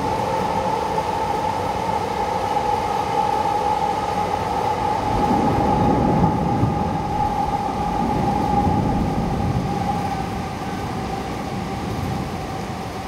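Heavy downpour hissing steadily over the city, under a steady whine that drifts slightly lower in pitch and a low rumble, fading a little near the end.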